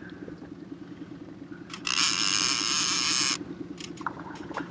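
A fishing reel's drag buzzes loudly for about a second and a half, starting about two seconds in, as a hooked landlocked salmon pulls line off against the drag. Underneath, a small outboard motor runs steadily at trolling speed.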